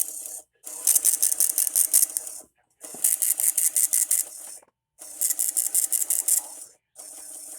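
NOAA Weather Radio broadcast audio breaking up into harsh, buzzing, crackling static in bursts of just under two seconds with brief silent gaps between them, typical of a failing relay of the station's signal.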